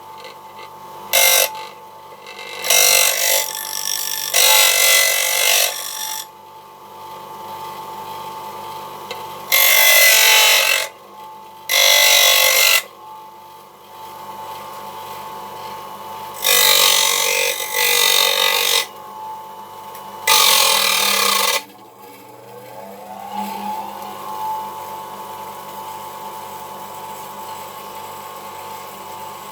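Mac Allister MBGP150B bench grinder running with a steady whine, as a steel chisel is pressed to the spinning wheel in about seven harsh grinding passes of one to two seconds each. Past the middle the whine dips and climbs back up in pitch as the wheel comes back up to speed.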